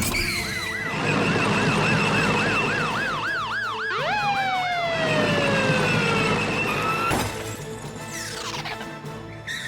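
Police siren sound effect, a fast yelping wail that rises and falls several times a second, followed from about four seconds in by several long falling tones, over background music.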